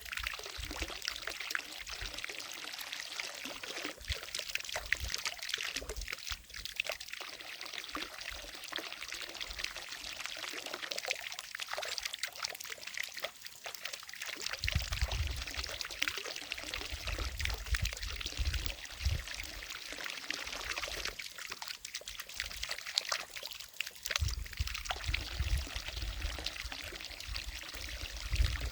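Water from a fountain falling steadily into a lake, a continuous splashing hiss. Low rumbling comes in about halfway through and again near the end.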